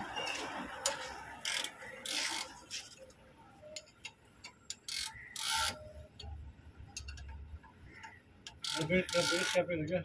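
A spanner working the adjusting nut of a truck air-brake slack adjuster: scattered metallic clicks and ratcheting scrapes, with louder scraping bursts about two, five and nine seconds in.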